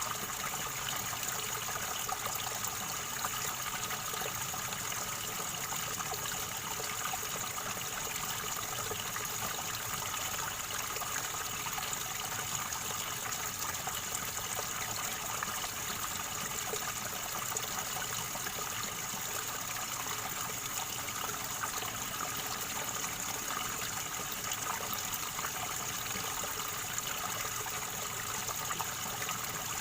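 River water gurgling, in an even, unbroken flow.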